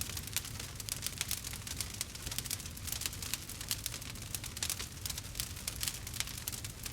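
Wood campfire burning, crackling with many small irregular pops over a low steady rumble.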